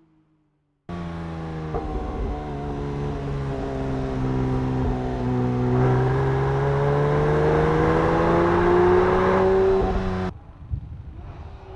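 Porsche 911 GT3 S/C's 4.0-litre naturally aspirated flat-six and its exhaust running at raised revs. The sound starts suddenly about a second in, sags a little in pitch, then climbs steadily as the revs build, and cuts off abruptly near the end.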